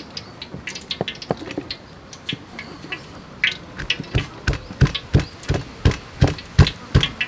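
Cleaver slicing pickled cucumbers on a thick wooden chopping board: knocks of the blade on the wood, light and scattered at first, then even chops about three a second from about four seconds in.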